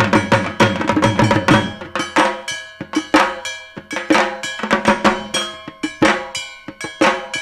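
Dhak drums beaten in a Durga Puja rhythm, dense rapid strokes that thin out to a sparser beat about two seconds in, with a ringing metallic sound under the drumming.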